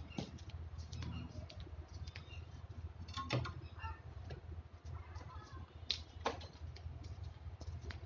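Scattered sharp clicks and knocks from long poles being handled and knocked together against a wall, loudest about three seconds in and twice around six seconds, over a steady low hum.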